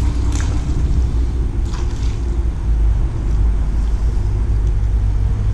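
Steady low rumble, with a few faint brief rustles over it.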